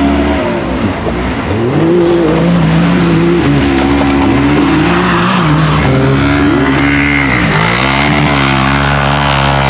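Side-by-side UTV engine revving hard up a dirt hill climb, its pitch climbing and holding, then dropping and climbing again about every two seconds as the throttle is worked.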